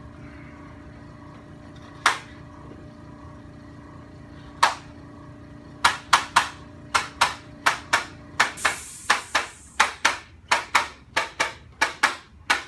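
A series of sharp slaps: two single ones, then from about six seconds in a steady run of about three a second.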